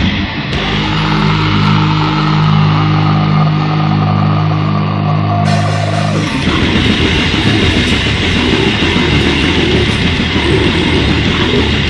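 Grindcore band recording: a distorted electric guitar holds a sustained chord for about six seconds, then the full band with drums comes in at once on a fast, dense section.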